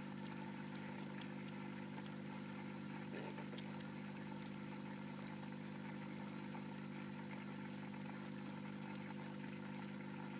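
A steady low electrical hum with a few faint small clicks and ticks over it, one a little sharper about three and a half seconds in, while a pet hamster is hand-fed baby food from a metal spoon over a saucer.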